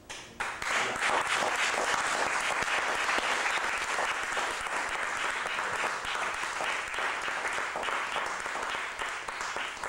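Audience applauding: many hands clapping together, starting abruptly and holding steady before thinning out near the end.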